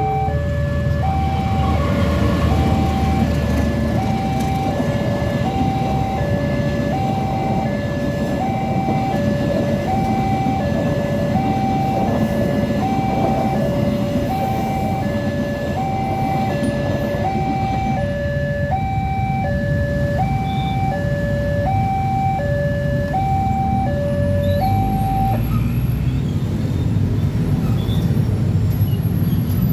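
Level-crossing warning alarm sounding a steady alternating two-tone 'ding-dong', high and low tones swapping about once a second, until it stops about 25 seconds in. A loud steady rumble of noise runs underneath throughout.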